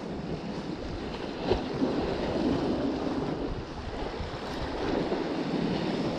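Sea waves washing on the shore, swelling and easing, with wind buffeting the camera microphone. A single sharp knock sounds about a second and a half in.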